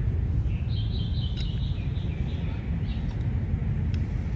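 Outdoor ambience: a steady low rumble, with a bird chirping a quick run of high notes in the first half.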